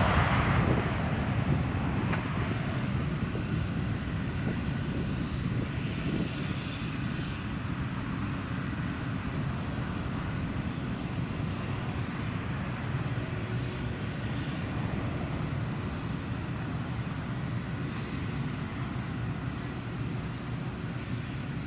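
Airplane engine noise from a passing aircraft, fading away over the first couple of seconds and settling into a steady low rumble.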